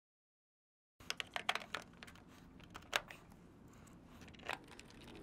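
Service-valve cover being fitted back onto a Daikin mini-split condenser: light clicks and knocks of the cover against the casing, a quick cluster about a second in, then single clicks about three and four and a half seconds in. Silent for the first second.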